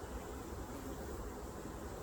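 Steady hum of a honeybee colony buzzing around an open hive during a frame inspection, under an even hiss.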